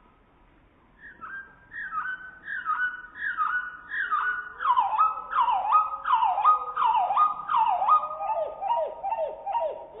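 Male common chaffinch singing, slowed down so the song sounds low and drawn out. It is a run of repeated falling notes that starts about a second in, grows louder and quicker toward the middle, and ends in lower, faster notes.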